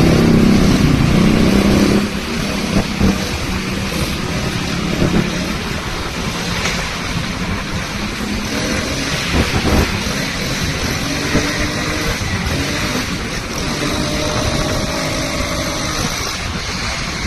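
Motorcycle engine running with a steady pitch for about the first two seconds, then a steady rushing noise of riding, with a few brief thumps.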